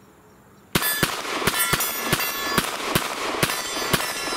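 Glock 19 Gen 5 9mm pistol fired in a quick string, about nine shots starting about a second in, each a quarter to half a second apart. Steel targets ring between the shots.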